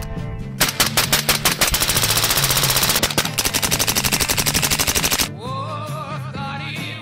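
A long string of rapid gunfire from an AR-pattern firearm, shot after shot in quick succession, over background music with a steady bass line. The shooting stops about five seconds in, leaving only the music, which rises in pitch.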